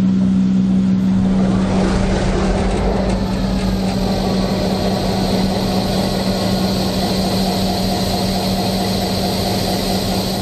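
EMD SD9M diesel locomotive heard from inside the cab, its engine running with a loud steady hum over a dense rumble.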